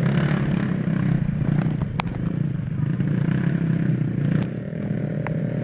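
Trail motorcycle engine running steadily at low revs as the bike creeps along a muddy log-plank track. There is a sharp click about two seconds in.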